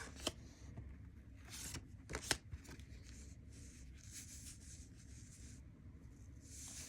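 Faint rustling and crinkling of merchandise packaging handled by hand, with two sharp clicks a couple of seconds in.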